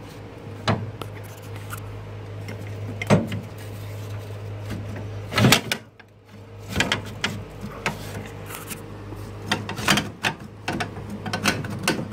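Pontiac LeMans steering column housing knocking and scraping against the dash as it is handled and shifted by hand. There are a few single knocks, the loudest about halfway, then a run of quick clicks and rattles in the second half.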